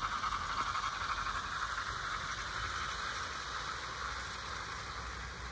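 OO gauge model train running on its track, its motor and wheels making a steady whirring that pulses rhythmically several times a second and fades as it moves away.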